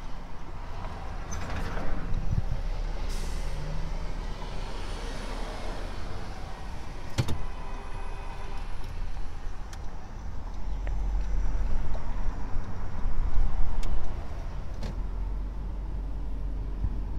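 Road and engine noise of a Honda car heard from inside the cabin as it drives through a right turn, with a brief hiss about three seconds in and a single sharp click about seven seconds in. The low rumble grows louder and then drops off suddenly about fourteen seconds in.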